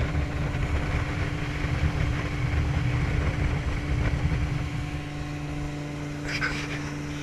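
Motorboat engine running steadily under way, a constant hum over a low rumble, easing off a little about five seconds in. A brief voice cuts in near the end.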